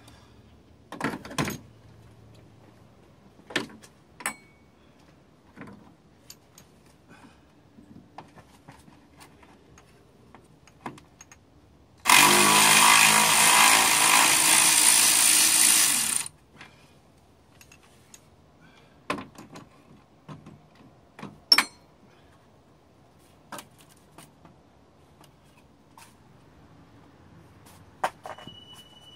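A power ratchet runs for about four seconds midway, spinning out a bolt at the top of the radiator. Scattered sharp clicks and knocks of tools and parts come before and after.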